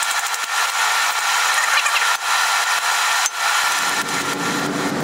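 Sped-up blacksmithing at the anvil on hot steel: a dense, steady hiss and rattle of fast-run hammer and tool noise, with a lower layer of sound joining near the end.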